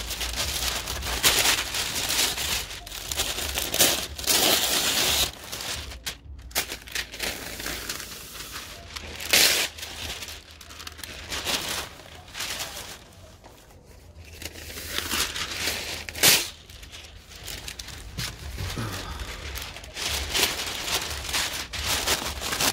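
Brown paper being pulled off a roll, torn and spread out flat, crinkling and rustling in irregular bursts, several of them sharp and loud.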